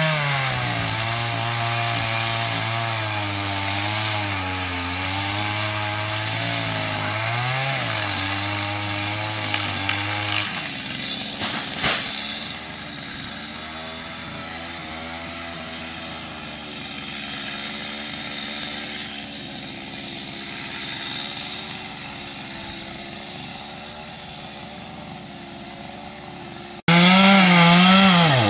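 Stihl MS 250 two-stroke chainsaw running at high revs, its pitch sagging and recovering as it cuts wood. About a third of the way in it drops to a quieter, steadier running with one sharp knock. Near the end it jumps suddenly back to loud, rising and falling revs.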